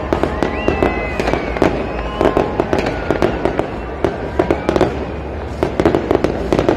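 Fireworks display: a dense run of bangs and crackling bursts, with a few rising whistles over the top.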